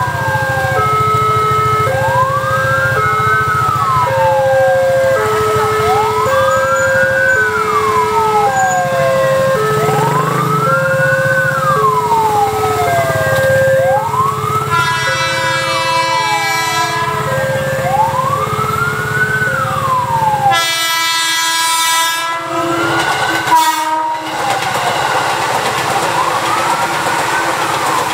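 Railway level-crossing warning alarm from the crossing's loudspeaker: a two-tone electronic chime alternating about once a second under a siren-like whoop that rises and falls every couple of seconds. A KRL electric commuter train sounds its horn twice, faintly about halfway through and loudly a few seconds later, then runs past with the rumble of its wheels near the end.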